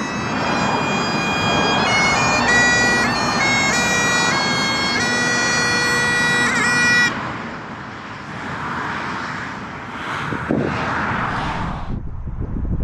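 Background music of sustained, reedy notes that change pitch in steps, cutting off about seven seconds in. A soft rushing hiss follows, and near the end wind buffets the microphone.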